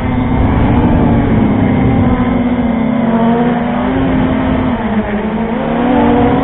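FPV quadcopter's motors and propellers whining steadily over a heavy low rumble, the pitch sagging and rising a few times as the throttle changes.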